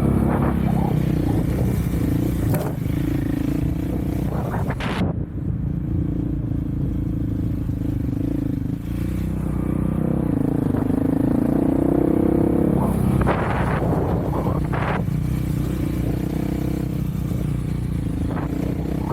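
Off-road vehicle's engine running under way, its pitch rising and falling with the throttle, with short scraping and clattering bursts a few times, the largest about five seconds in and around thirteen to fifteen seconds in.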